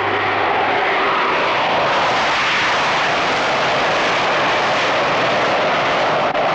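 Loud, steady rushing noise with no clear pitch, as the last notes of the music die away in the first half-second.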